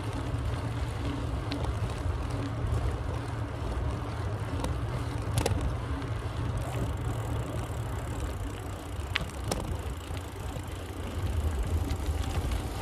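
Riding a Trek Marlin 6 mountain bike: a steady low rumble of wind and tyre noise, with a few sharp clicks.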